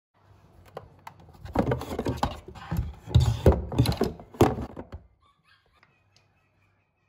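A close, irregular series of knocks and rustling that builds to several loud thumps in the middle and stops about five seconds in, leaving a faint low hum.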